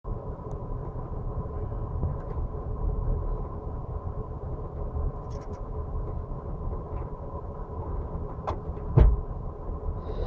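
Passenger train running, heard from on board: a steady low rumble with a faint steady hum, and two sharp knocks near the end, the second the loudest.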